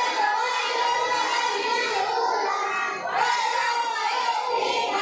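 A group of children singing together, many voices at once.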